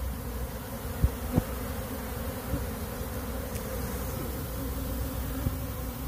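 A swarm of honeybees buzzing in a steady hum as they fly about around their opened box and comb. Two short knocks come just after a second in.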